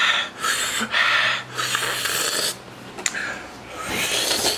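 A man breathing hard in and out through his open mouth, about six heavy, airy breaths, to cool a tongue burning from habanero pepper heat.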